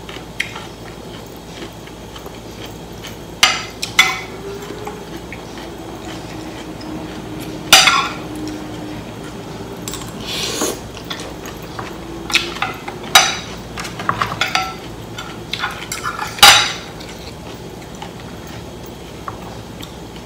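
Metal fork and spoon clinking and scraping against a china plate while eating rice noodles in curry: a dozen or so sharp clinks scattered unevenly, the loudest about three-quarters of the way through.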